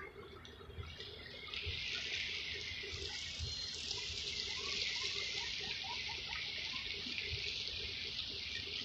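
Water trickling and lapping against the pier, a steady hiss that grows louder about a second and a half in. Partway through comes a run of short, faint rising chirps.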